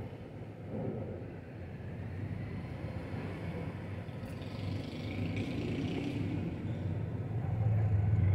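City traffic rumble, with one vehicle's engine hum growing louder near the end.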